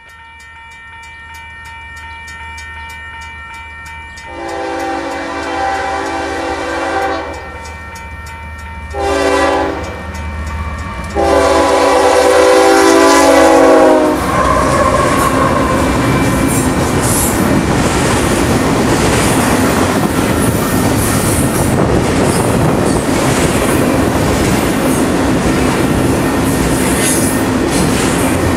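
Union Pacific intermodal freight train led by two GE diesel locomotives, an ES44AC and an AC44CW, approaching with a low engine rumble and sounding its air horn three times: a long blast, a short one and a long one. From about halfway the locomotives pass close by, and the sound becomes a loud, steady rumble and clatter of double-stack well cars rolling past.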